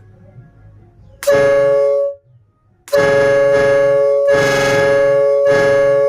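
Gold jumbo replica RK air horn sounded twice: a short blast of under a second, then a long blast of about three seconds. Each blast is a steady two-note chord from its trumpets.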